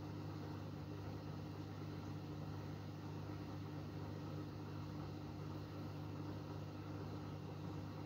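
Samsung Eco Bubble front-loading washing machine running its wash cycle: a steady, even motor hum as the drum turns wet, foamy laundry.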